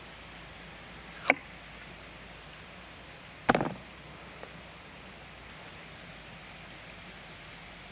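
Two sharp knocks of a kitchen knife against a wooden cutting board, about two seconds apart, the second lasting a little longer, over a steady background hiss.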